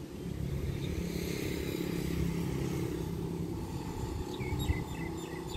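Diesel-electric locomotive of Express 84 (CRRC Qishuyan, QSY class) running as the train pulls away from the station. It is a steady low engine note that swells about a second in and eases off toward the end.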